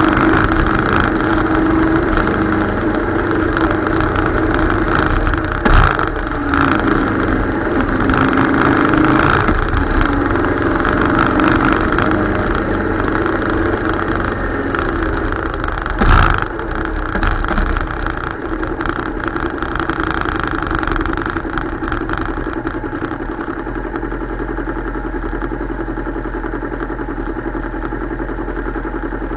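Motorcycle engine running on the move, mixed with wind and road noise, with two brief knocks along the way. From about two-thirds of the way in the sound drops to a quieter, steady engine idle as the bike stops.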